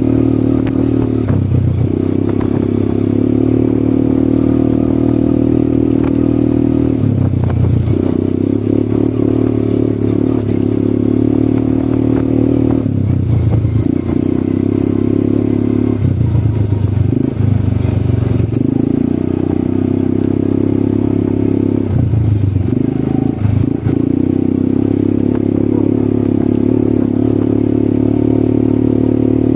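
ATV engine running steadily while being ridden. Its note drops briefly about six times and comes back each time, as the throttle is eased off and opened again.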